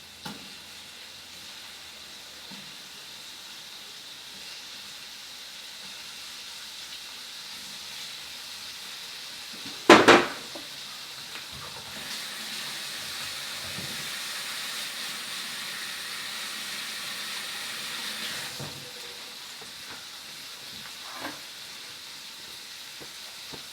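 Shrimp frying in hot oil in a pan: a steady sizzle that grows louder for several seconds past the middle and then drops back. About ten seconds in there is a single loud knock, and a lighter click near the end.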